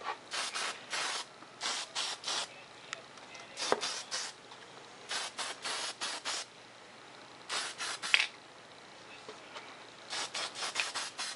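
Aerosol spray-paint can hissing in many short bursts, each under half a second, with a pause of about two seconds near the end, as a second coat is sprayed onto a foam model jet.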